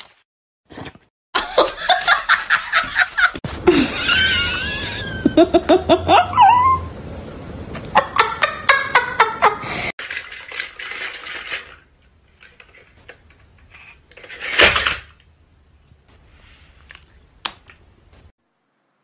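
A person laughing hard in rapid bursts, with higher wavering voice sounds in between; the laughter dies away after about ten seconds, leaving quieter scattered sounds and one short louder burst later on.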